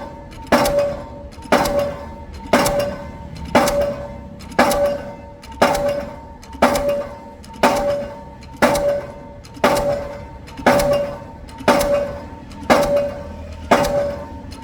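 Delmag D46-32 diesel impact hammer driving a 450 mm PHC concrete pile: a steady run of heavy blows, about one a second, each followed by a short metallic ring.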